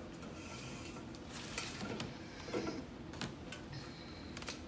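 Light handling noises: a pack of Coke being picked up and set into a plastic bin, with a few soft knocks and clicks spread through it.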